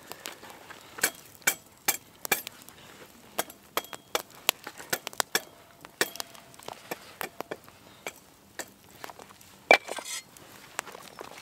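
Open wood campfire crackling, with many sharp irregular pops and a loud crack near the end, and a few metallic clinks as a wire grill grate is set over the flames.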